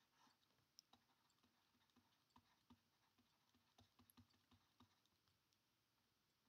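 Near silence with faint, irregular ticks and taps of a stylus on a pen tablet while handwriting.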